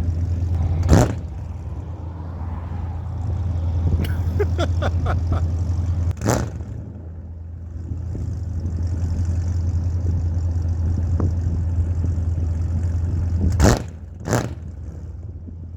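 A HEMI V8 engine idling with a steady low drone. A few sharp thumps come over it, about 1 s in, 6 s in and twice near the end, with a quick run of ticks around 4 to 5 seconds.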